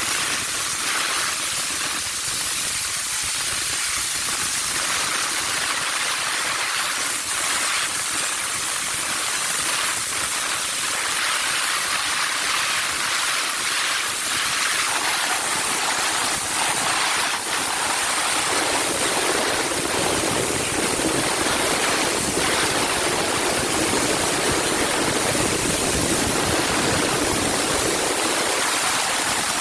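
Handheld steam car-wash gun hissing steadily as a jet of steam is sprayed onto a car's body panels. About halfway through, the hiss grows fuller and lower.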